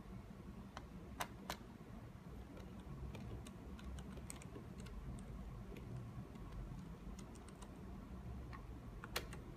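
Small scattered clicks and ticks of a hand screwdriver driving screws back into the circuit board of an opened remote controller, with its plastic case being handled. A few sharper clicks come about a second in and near the end.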